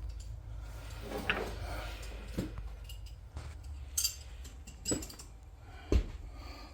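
Steel lawnmower blade clinking and knocking as it is handled on a blade balancer: a handful of separate metallic knocks, the loudest about six seconds in.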